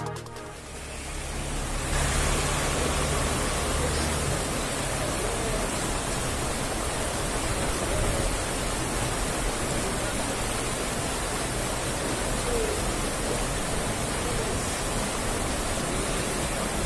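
Fast water rushing through a concrete drainage culvert and channel, a steady, even rush.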